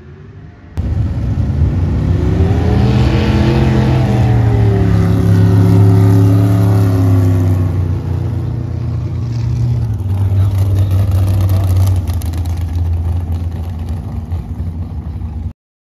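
Drag race car engines launching from the start line about a second in and running hard down the drag strip. The loud engine note climbs, then falls as the cars pull away, and cuts off suddenly near the end.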